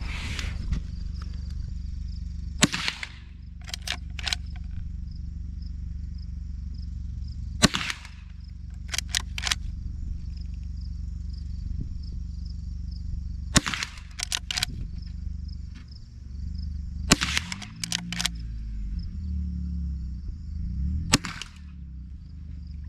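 Five shots from a Henry Golden Boy .22 Long Rifle lever-action rifle, about four to six seconds apart. Each shot is followed by a few quick clicks as the lever is worked to chamber the next round, over a steady low rumble.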